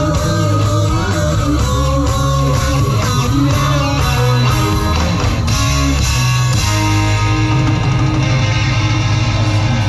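A band playing rock music live: electric guitar lines that bend in pitch over a steady bass and drums. About six and a half seconds in, it changes to held chords.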